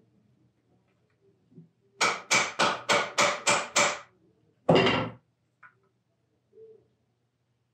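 A small hammer tapping the wooden body of a jointer plane to back the blade off: seven quick taps, about three a second, starting about two seconds in, then a single harder blow.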